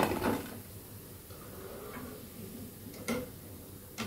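Fried fritters tipped from a wire skimmer onto a ceramic plate: a short clatter of them landing at the start, then two light clicks of the skimmer against the plate about three and four seconds in.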